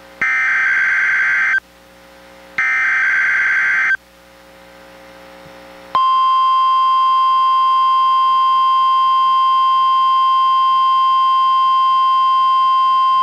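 NOAA Weather Radio alert signals: the last two of three SAME digital header data bursts, each about a second and a half long and a second apart. After a two-second pause, the steady 1050 Hz warning alarm tone starts about six seconds in and holds, sounded as a test of the weather radio's warning alarm.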